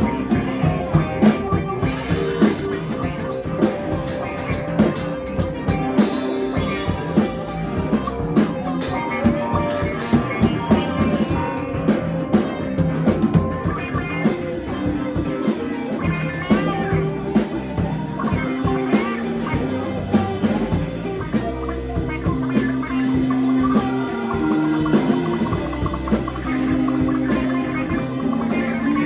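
Live rock band playing an instrumental passage: guitar over a drum kit with a steady beat.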